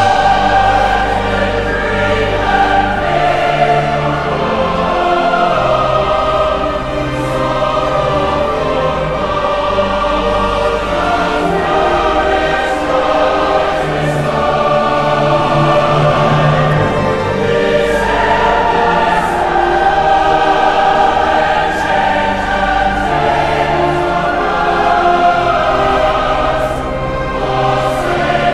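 A choir singing a slow song in long held notes, used as background music.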